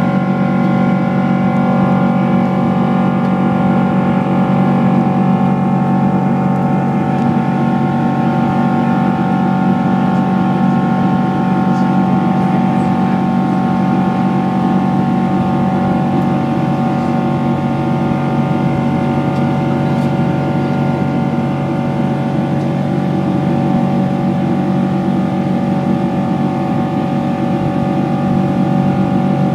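Rolls-Royce Trent 892 engines of a Boeing 777-200ER heard from inside the cabin during the climb after takeoff: a steady loud drone over a rush of air, with several steady hum tones that do not change.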